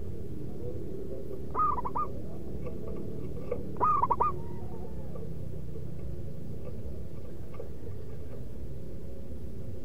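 Zebra dove (perkutut) cooing: two short phrases of quick, rolling coo notes a couple of seconds apart, the second louder. A steady low background noise runs under them.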